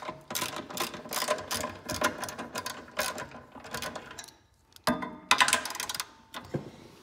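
Hand ratchet with a 10 mm socket clicking in quick runs as it loosens nuts, with a short pause about four seconds in before the clicking resumes.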